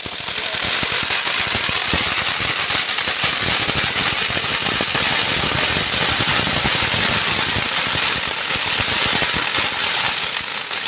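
Ground fountain firework (anar) spraying sparks: a steady, loud hiss thick with fine crackling.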